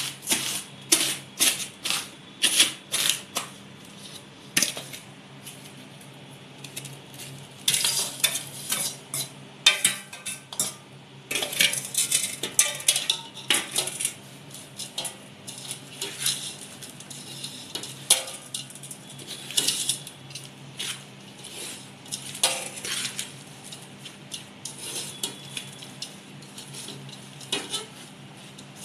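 Steel spoon clinking and scraping against a steel pot, stirring a dry, crumbly laddu mixture of jaggery, roasted semolina, coconut and fried edible gum. In the first few seconds a quick run of knocks as fried gum is crushed coarsely on a steel plate.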